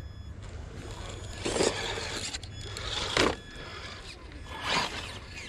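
Traxxas TRX-4 Defender scale RC crawler working over granite rock: three short scraping bursts from its tyres and chassis on the rock, roughly a second and a half apart, over a steady low rumble.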